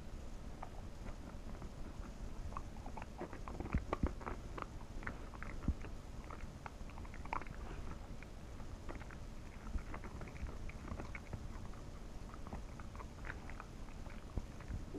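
Pembroke Welsh corgi chewing and biting at a treat on the floor: irregular small crunches and clicks of the mouth, spread through the whole stretch.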